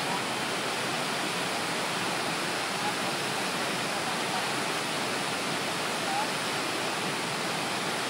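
Cusarare Falls pouring into its pool below: a steady, unbroken rush of falling water.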